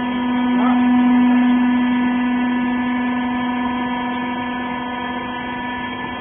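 Hydraulic baler's electric motor and pump running with a steady hum, swelling about a second in and then slowly easing.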